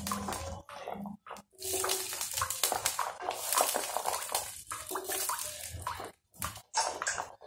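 Diced carrots dropped by the handful into a pan of water, splashing and plopping in irregular bursts, with brief pauses about a second in and near the end.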